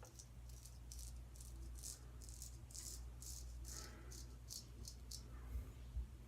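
Straight razor scraping stubble and lather off the cheek in quick short strokes, a faint, crisp scratch about three times a second.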